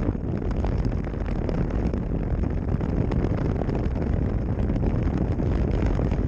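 Wind noise from airflow buffeting the microphone of a camera mounted on a paraglider harness in flight: a steady, deep rush with constant flutter.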